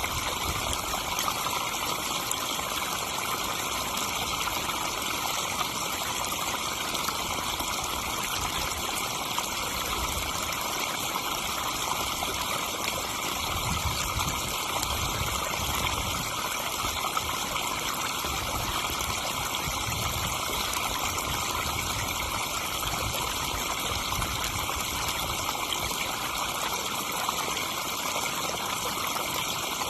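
Pond waterfall: water spilling and splashing steadily into the pond, an even rushing that does not change.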